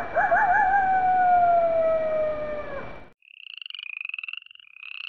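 A wolf howls once: a wavering start, then one long note that slowly falls and dies away about three seconds in. Then frogs call in short, rapidly trilled croaks, several in a row.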